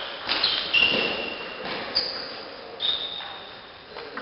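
Table tennis play in a large hall: a handful of sharp knocks of the ball on table and bats, several trailed by a short high ringing tone.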